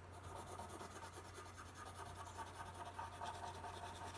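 A colored pencil scratching across paper in quick, continuous strokes as shading is cross-hatched and blended.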